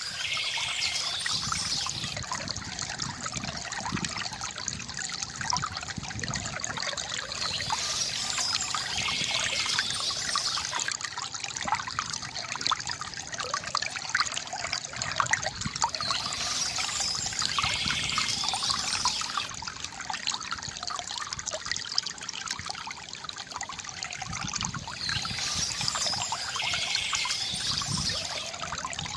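Water from a bamboo fountain trickling and splashing steadily into a basin. Bursts of bird chirping come back about every nine seconds.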